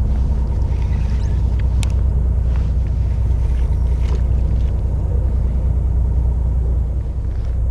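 Fishing boat's engine running steadily at idle, a low rumble, with a few faint ticks over it.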